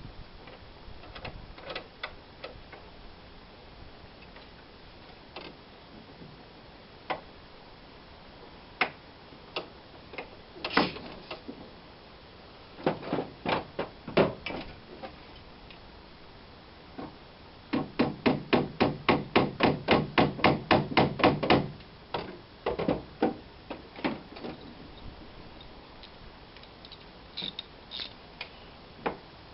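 Hammering: scattered single blows and short clusters, then a fast, even run of about twenty blows at roughly five a second through the middle.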